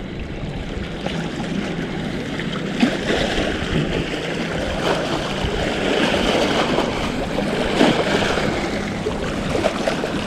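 Small waves washing and splashing against shoreline rocks, with a few short knocks and a faint steady low hum underneath.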